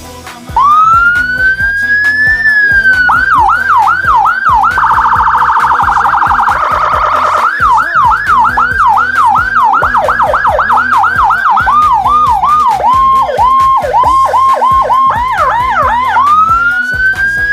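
Electronic siren cycling through its tones. It opens with a slow rising and falling wail, then fast yelping sweeps of about three a second. A rapid rattling warble follows in the middle, then more yelps that speed up and slow down, and a rising wail again near the end.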